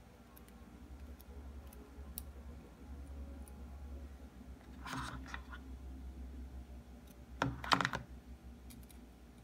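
Small clicks and taps of a smartphone and its cardboard box being handled, with a short rustle about five seconds in and a louder burst of clicks and scraping near the end as the iPhone 12 is lifted out of its box. A faint low hum runs underneath.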